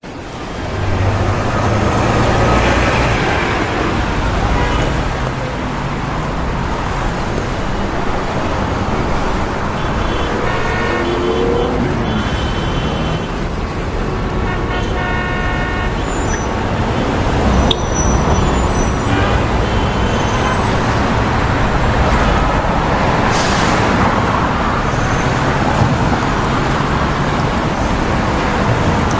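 Busy city street traffic: a steady wash of car and bus engines and tyre noise, with a few brief pitched tones and a sharp click around the middle.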